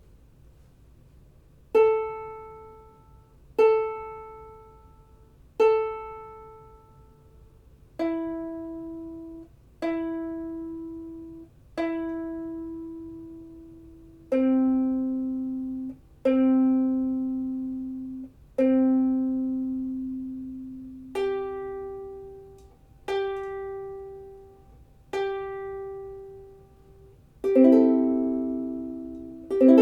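Ukulele open strings plucked one at a time, each ringing out and fading: the A string three times, then E three times, then C three times, then G three times. Near the end all four open strings are strummed together twice.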